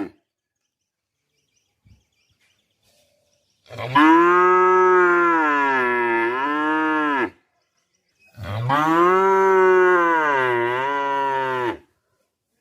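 A cow mooing twice, two long calls of about three seconds each with a second of silence between them, each swelling and then sinking in pitch at its end.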